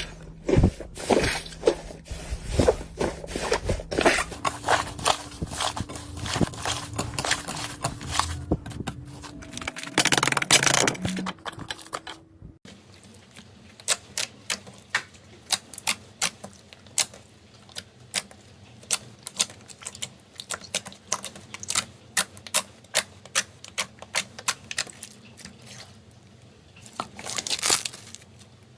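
Slime being handled and pressed, crackling and popping in many small, quick clicks. About twelve seconds in the sound changes abruptly to a quieter run of sharper, sparser clicks, which grow busier again near the end.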